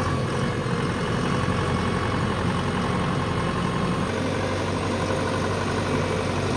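JCB 3DX Plus backhoe loader's diesel engine idling steadily.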